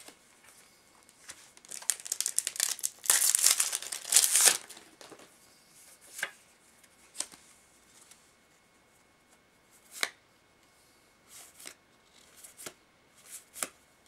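A trading-card booster pack wrapper torn open and crinkled for a few seconds, then a scattering of light single clicks and taps as the cards are handled and laid down.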